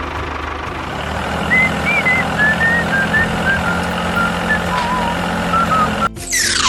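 A vehicle or machine running steadily, with short wavering chirps over it. A quick falling whoosh comes near the end.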